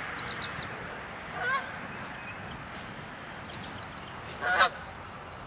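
A goose honking twice, a faint call about a second and a half in and a loud one near the end, with small birds chirping high and faint over a steady outdoor hiss.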